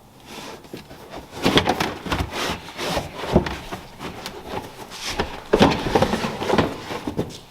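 Irregular knocks, clunks and rubbing of objects being handled and moved around.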